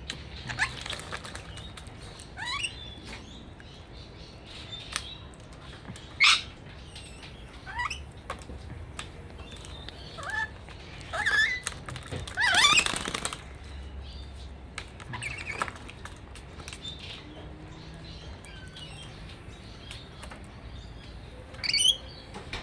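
A bird bathing, flapping its wings in the water in short bouts, about nine of them with pauses between. The longest bout comes about halfway through.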